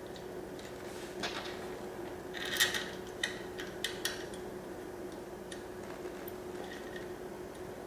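A few light clinks and knocks of small metal parts and tools being handled on a workbench, the loudest about two and a half seconds in, over a faint steady hum.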